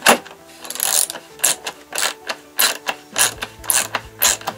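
Ratchet wrench worked in short back-and-forth strokes, clicking about twice a second, with a sharp knock at the start.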